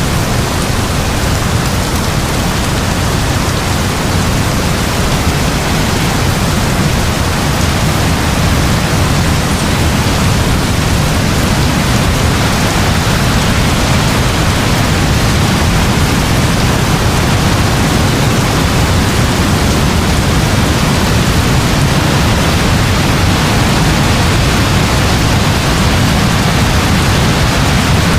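Heavy rain falling steadily: a dense, even hiss with a strong low rush and no thunderclaps.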